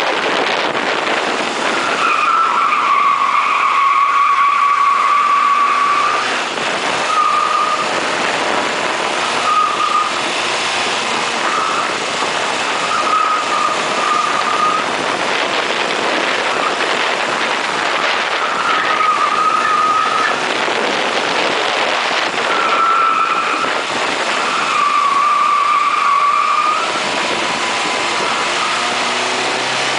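Ford Fiesta SuperSport's tyres squealing through corners at speed, several spells of a high squeal with the longest near the start and near the end, over a steady rush of wind on the microphone and road noise.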